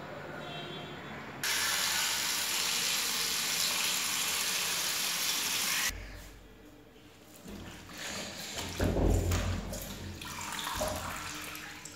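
Tap water running steadily into a steel bowl of saag greens in a steel sink, cutting off suddenly about six seconds in. A hand then swishes and splashes the leaves around in the water, washing them.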